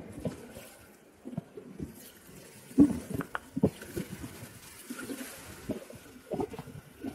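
Whitewater rapids splashing around an inflatable packraft canoe, with irregular splashes and knocks from paddle strokes, the strongest a little under three seconds in.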